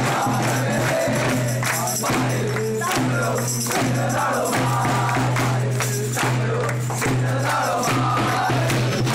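A group of carol singers singing a Christmas carol to tambourine strikes, over a low steady tone.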